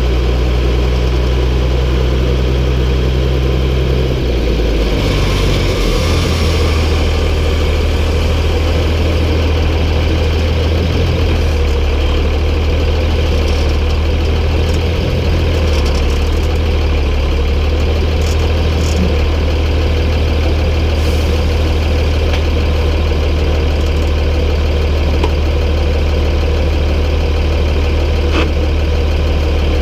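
MB Trac 1800's six-cylinder diesel engine idling, its pitch shifting a few seconds in and then holding steady.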